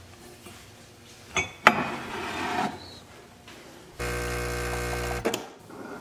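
Two sharp knocks, then a short scrappy rattle, then an espresso machine's pump hums steadily for just over a second and cuts off suddenly while pulling a shot into a ceramic mug.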